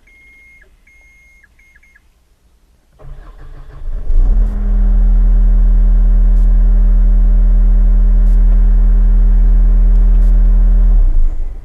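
A few short electronic beeps, then the Yanmar Tier 4 diesel engine of a John Deere E-Series skid steer cranks about three seconds in, catches and runs steadily. It is shut off abruptly near the end.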